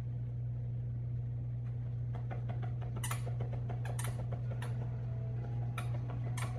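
Short clicks and crackles as a chihuahua mouths and bites a plush carrot toy, more frequent from about three seconds in, over a steady low hum.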